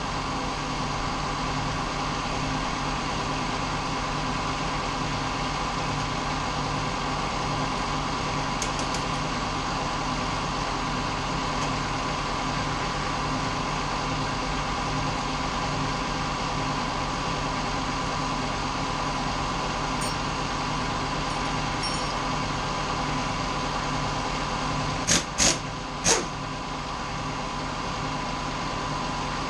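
Steady machine hum, even in level. Near the end come three sharp clinks close together as the motorcycle's rear wheel parts are handled.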